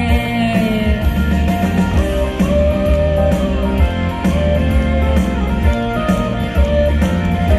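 Instrumental passage of a live pop song: a guitar melody over a steady beat with bass, with no singing.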